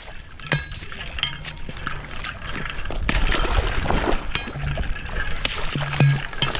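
A hooked bass splashing and thrashing at the water's surface while it is fought in close to the bank, the splashing growing louder about three seconds in.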